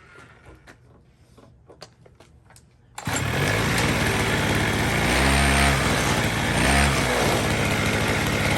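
Small gasoline engine on a homemade scooter running loudly, coming in abruptly about three seconds in and revving up twice. The engine still needs a little carb tuning.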